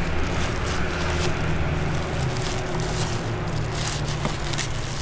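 Cardboard box and paper wrapping rustling and crinkling as the box is opened and unwrapped, with scattered crackles, over a steady low hum.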